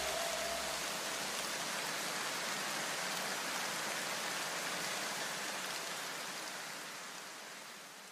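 Soft, even hiss of a white-noise wash in electronic background music. The last notes die away in the first second, and the hiss fades out toward the end.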